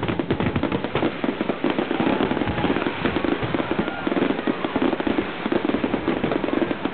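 Fireworks display: a dense, continuous barrage of rapid bangs and crackling, many reports a second with no pause.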